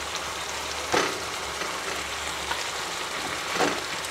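Green cafreal masala gravy sizzling in a frying pan while pre-fried chicken pieces are pushed off a plate into it with a wooden spatula. Two brief louder knocks, about a second in and near the end, as pieces drop into the pan.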